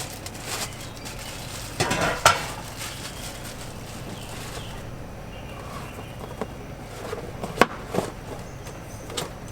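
Metal grill parts being handled and set down during assembly: scattered clinks and knocks, with a short burst of rustling about two seconds in.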